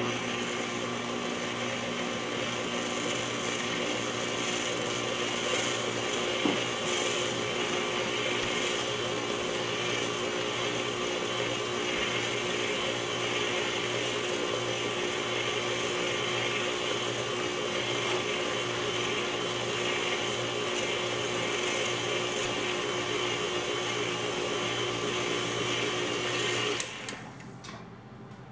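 KitchenAid stand mixer's motor switches on and runs at a steady hum while its flat beater mixes thick banana bread batter in a stainless steel bowl. Near the end the motor winds down and stops.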